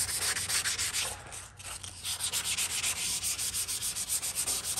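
Hand wet-sanding of a primed, guide-coated Chevy C10 cab panel: sandpaper held in the fingertips rasps back and forth in quick strokes, about five a second. The strokes pause for a moment about a second in, then carry on.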